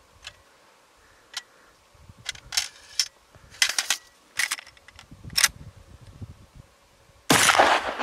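Sharp metallic clicks as a Henry lever-action .45-70 rifle is loaded and handled. About seven seconds in comes one loud rifle shot with a short echoing tail.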